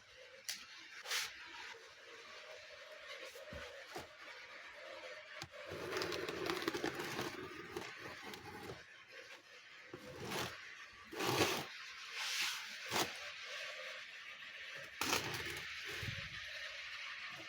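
A package being cut and pried open with a knife: scraping and rustling of packaging, with scattered clicks and knocks and a few louder sharp tears.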